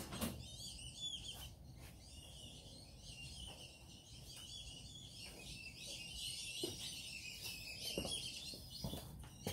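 Birds twittering faintly, a steady stream of short high chirps, with a few soft knocks.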